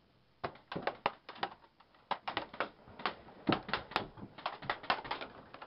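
Airsoft BBs striking the weathered wooden walls of a barn: a rapid, irregular patter of sharp clicks of uneven loudness, the players pinned down under fire.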